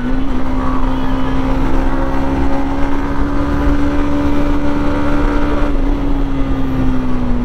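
Yamaha MT-15's 155 cc single-cylinder engine running at a steady pace on the move, a steady drone holding one pitch over wind and road rumble. The pitch eases slightly near the end.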